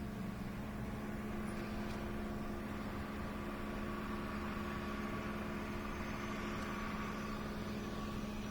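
A truck engine idling steadily, a constant hum that does not change pitch.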